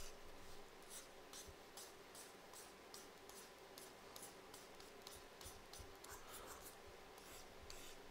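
Faint scratching of a pen stylus on a graphics tablet, in short quick strokes about two or three a second, as the brush is dabbed and dragged across the canvas.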